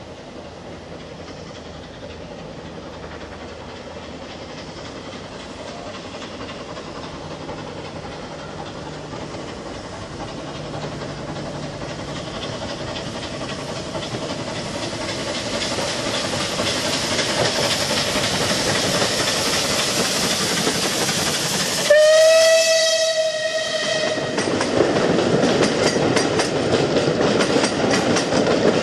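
Steam locomotive hauling a train of coaches, approaching and growing steadily louder. About 22 seconds in it gives one steam whistle blast of about two seconds, a single steady note. The coaches then pass close by, their wheels clicking regularly over the rail joints.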